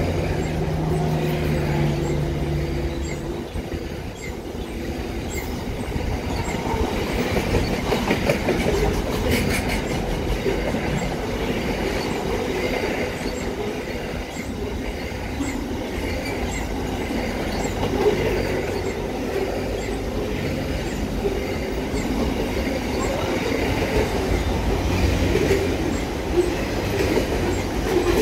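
Freight train wagons, louvred boxcars and container flats, rolling past on steel rails: a steady rumble of wheels on track, with clicks as the wheels cross the rail joints.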